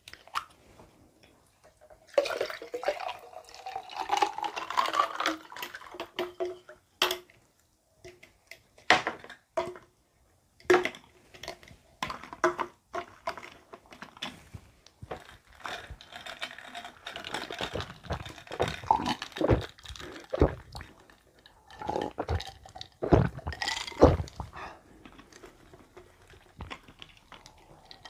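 Bottled milk coffee poured from plastic bottles over ice into glasses, the pour rising in pitch as a glass fills. Ice clinks, and there are sharp clicks of bottle caps and bottles set down on the table.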